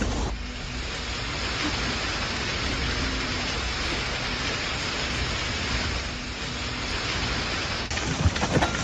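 Heavy rain pouring down in a steady, dense hiss. Near the end the sound changes abruptly to sharper, scattered hits.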